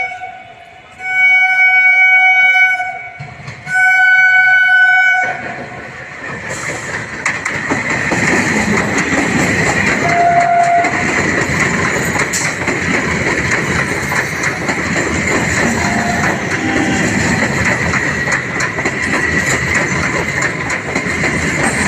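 Electric multiple-unit local train sounding its horn in two long blasts, with the tail of an earlier one at the very start. From about five seconds in, the train runs past with a steady rumble and the clatter of wheels on rail.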